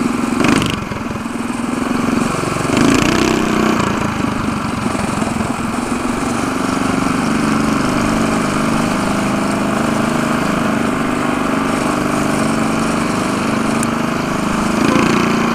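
Mini bike's small engine running as it rides along, its pitch stepping up and down with the throttle.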